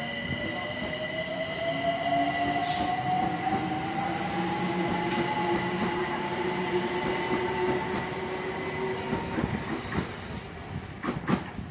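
London Overground Class 378 electric train pulling away along the platform. Its traction motors whine in a smooth, steady rise in pitch as it accelerates, over the rumble of wheels on the rails, with a few clicks near the end.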